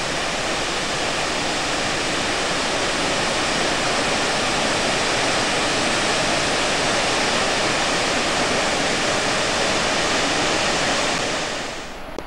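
Large waterfall's steady, loud rush of falling water, which cuts off abruptly near the end.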